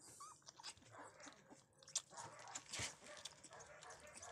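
Puppy suckling milk from a nursing bottle's teat: quiet, irregular wet smacking and clicking of sucking, with a short faint squeak near the start.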